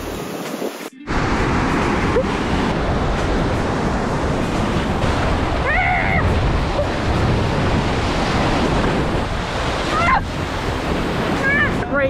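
Ocean surf breaking and washing around the microphone, a loud, steady rush of water noise mixed with wind buffeting, starting about a second in after a momentary gap. A woman gives short excited cries about six seconds in and again twice near the end.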